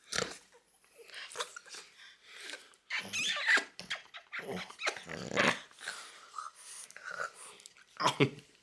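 French bulldog growling and grunting in several short, irregular bouts, the loudest about three seconds in, mixed with its snuffly breathing.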